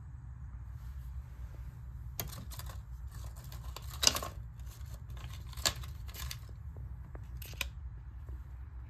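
Hands handling small objects on a bathroom counter: scattered light clicks, taps and rustles, with a sharper knock about four seconds in and another at about five and a half seconds, over a low steady hum.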